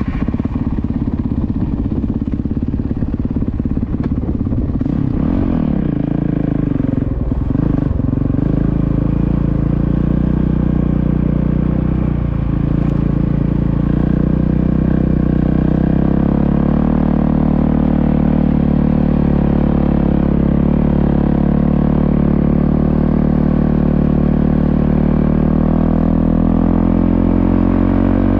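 Motorcycle engine running, its pitch shifting a few times in the first several seconds and then holding steady.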